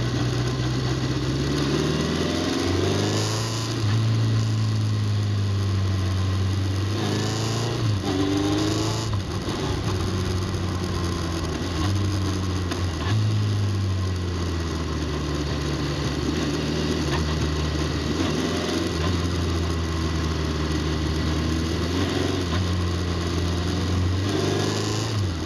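Motorcycle engine heard from on the bike while riding a winding road: it runs steadily, with its pitch rising under acceleration about two to three seconds in and again about seven to nine seconds in, then easing back. Steady wind and road noise sit under it.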